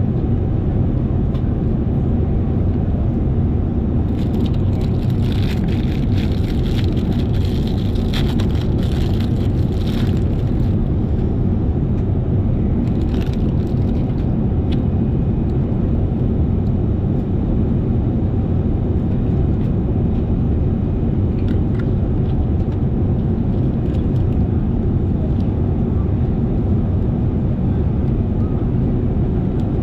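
Steady airliner cabin noise inside a Boeing 787-8, a constant low rush of airflow and engines. Light clicks and rustles come a few seconds in and again briefly later.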